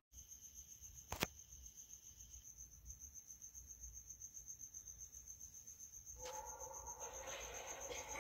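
Faint, steady pulsing cricket chirping, with one sharp click about a second in. About six seconds in, the fogging skull-pile prop's electronic sound effect starts and grows louder as the PIR sensor triggers it in the dark.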